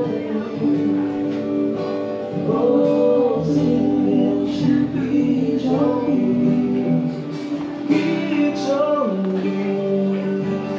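Live music: a singer with guitar accompaniment, the sung notes held and gliding over steady chords.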